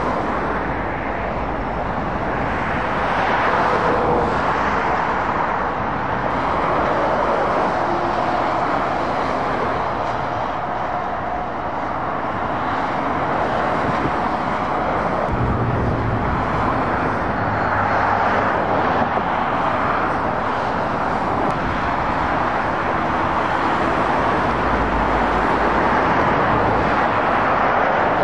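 Steady dual-carriageway traffic: heavy goods lorries and cars passing one after another, tyre roar on the road surface swelling and fading as each goes by. A deeper diesel engine hum from a passing lorry comes through about halfway.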